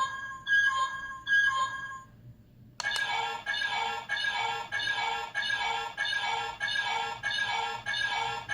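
Ultraman Omega DX transformation toy's speaker playing the Ultraman colour-timer warning sound, an electronic beep repeating a little under twice a second. The beeping stops about two seconds in; after a click of the toy's button it starts again, fuller in tone, and runs to the end.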